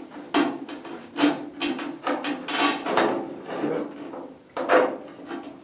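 Thin sheet steel at the cut edge of a pickup bedside being bent and pulled by gloved hands, scraping and creaking in a string of short, irregular rasps over a steady low hum.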